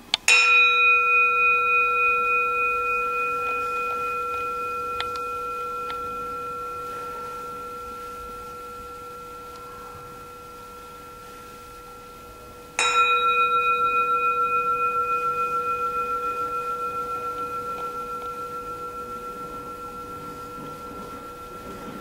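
Handheld metal singing bowl struck twice with a wooden striker, the strikes about thirteen seconds apart. Each strike rings on in several steady tones with a slow wavering, fading gradually: the bowl that marks the start of a zazen sitting.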